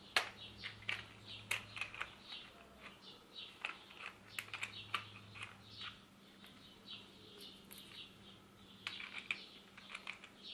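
Irregular small plastic clicks, taps and squeaks from a cordless screwdriver's add-on attachment being turned and wiggled to line up its hex and keys with the tool's mount, with a short lull partway through. A faint steady low hum runs underneath.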